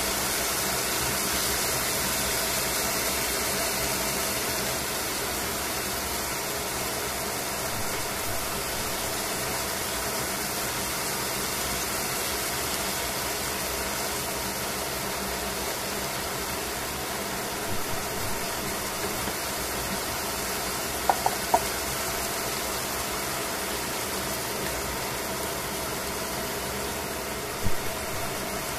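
Chicken frying in oil in a stainless steel pan: a steady sizzle, with a few brief pops and ticks in the second half.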